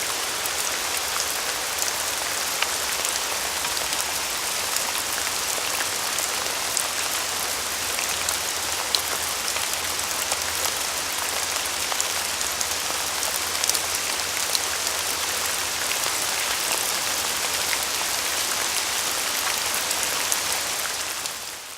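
Steady rain falling: an even hiss sprinkled with single drop ticks, fading out near the end.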